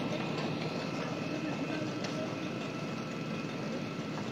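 Steady drone of fire engines running at a fire scene, with a faint steady high whine over it.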